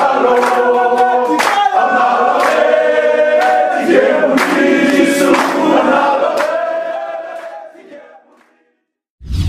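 A group of men singing together in harmony, with long held notes, fading out about eight seconds in. A brief low thud comes just before the end.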